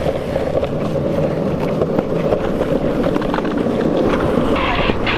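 Skateboard wheels rolling over rough asphalt, a steady gritty rumble.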